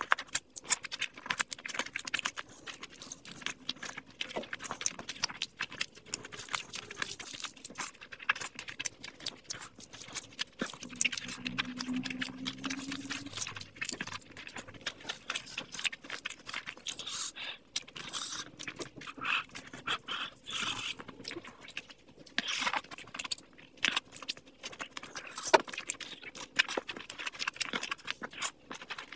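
Close-miked eating sounds: wet chewing, lip smacking and squelching of curry-soaked rice and chicken eaten by hand, in a dense run of small clicks and crackles. A short hum comes from the eater about two-fifths of the way through.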